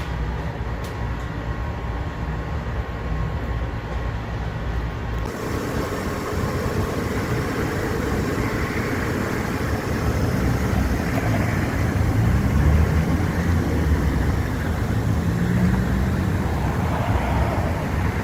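Mercedes-Benz C300's engine running steadily. About five seconds in, the sound changes abruptly to a broader, rougher rush that slowly grows louder.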